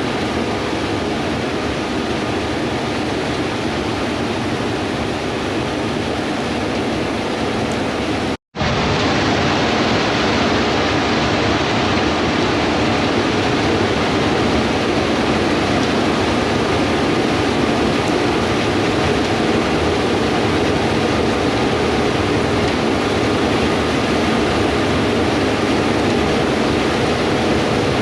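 Steady drone of combine harvesters at work in a wheat field, with faint steady machine tones in the noise. The sound cuts out for a split second about eight seconds in, then resumes slightly louder.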